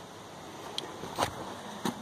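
Faint steady background noise with three light clicks, spread about half a second apart; no engine running.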